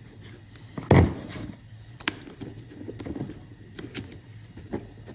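Handling knocks and clicks of a plastic Atlas under-table switch machine being fitted against the layout's baseboard, with one louder thump about a second in and a few sharp clicks after.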